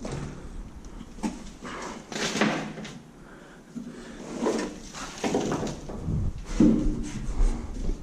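Irregular scraping and knocking as objects are dragged and shifted about, with rough scrapes on the floor.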